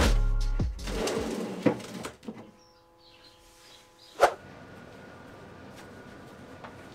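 A plastic covered cat litter box sliding and bumping as it is pushed into a wooden vanity cubby, fading out after about two seconds. A single sharp knock comes about four seconds in.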